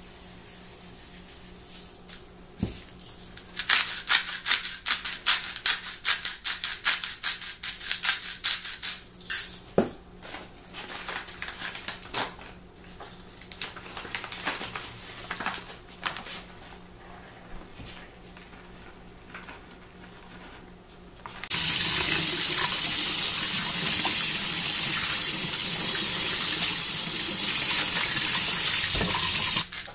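A seasoning shaker rattles in quick shakes over a mixing bowl, then a bag rustles now and then. About twenty seconds in, a kitchen tap turns on and runs steadily onto raw chicken in a stainless steel sink, the loudest sound here.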